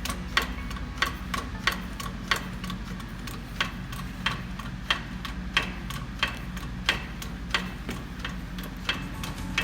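Regular sharp metallic clicks, about three every two seconds, over a steady low hum, as a pump shaft is pressed out of its bearings.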